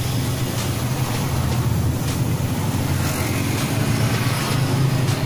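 A steady low machine drone with an even hiss over it, running without a break.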